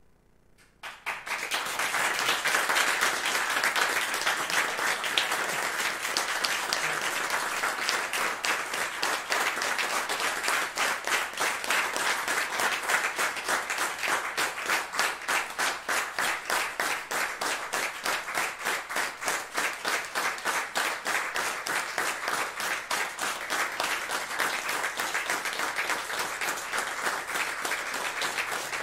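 A moment of near silence, then audience applause breaking out about a second in. In the second half the clapping falls into a steady beat in unison.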